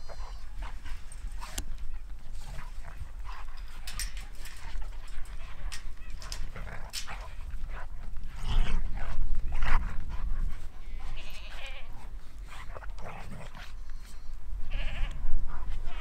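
Goats bleating a few times, short quavering calls, with scattered short clicks and scuffs between them.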